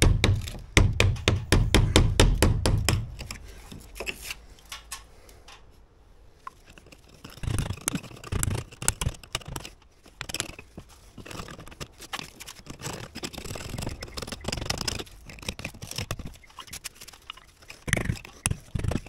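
A hammer driving a steel chisel to chip old mortar out of a hole in brickwork: a quick run of sharp taps over the first three seconds, then scraping of the chisel against brick and mortar with scattered knocks, and a short burst of taps near the end.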